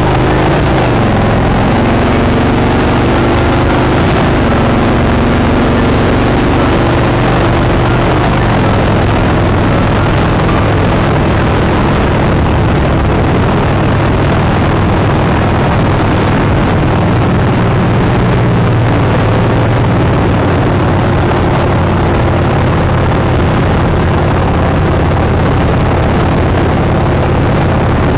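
Motorcycle engine running steadily at road speed, with heavy wind and road noise. The engine's pitch shifts a little in the first few seconds.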